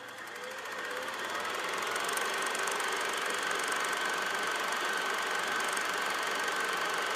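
8mm film projector running, a steady mechanical whir and clatter that fades in over the first two seconds and then holds steady, with a thin steady whine joining about two seconds in.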